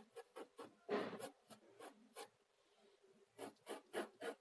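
Graphite pencil scratching on drawing paper in short, quick strokes, about four a second, refining the outline of a drawn sphere. One longer stroke comes about a second in, and after a pause of about a second the strokes resume.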